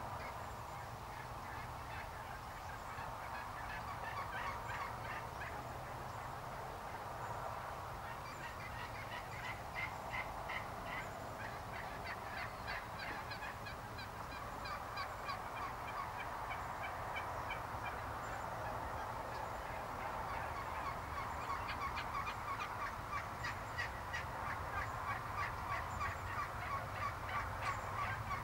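A flock of wild turkeys calling: runs of short, quick notes from several birds overlapping, busier and more regular near the end.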